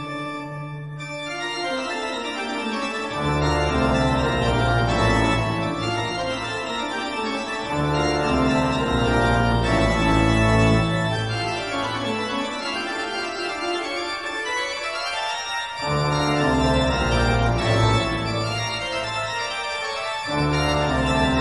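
Organ music: slow, sustained chords, with deep bass notes coming in and dropping out every few seconds.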